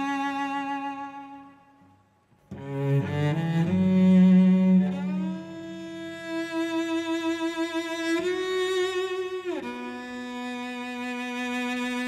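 Solo cello played with the bow: long held notes with a slight vibrato. The first note dies away about two seconds in, then a short rising run leads into new sustained notes, with a slide down to a lower note near the end.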